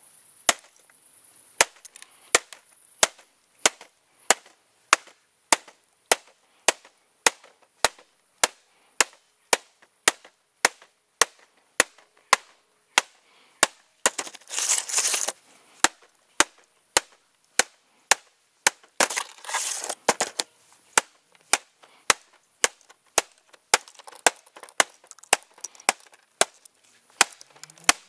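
A hammer strikes an eMachines laptop's plastic keyboard over and over, about one and a half blows a second, knocking keys loose. Twice, about halfway through and again a few seconds later, a longer rough scraping noise comes between the blows.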